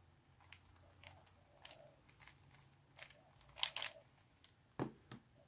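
Faint plastic clicking of a 3x3 speed cube's layers being turned quickly one after another through an algorithm. The loudest cluster of turns comes a little past halfway, with a last click near the end.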